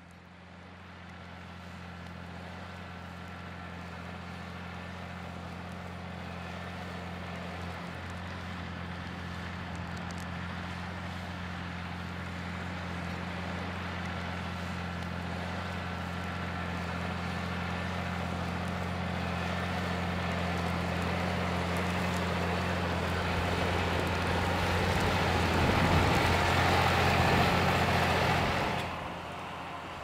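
Massey Ferguson 6499 tractor's diesel engine running steadily under load while pulling a plough. It grows gradually louder as the tractor draws closer, then drops away abruptly near the end.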